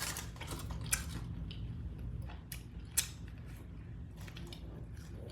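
A person chewing and eating up close, with mouth sounds and a few sharp clicks, one about a second in and a louder one about three seconds in.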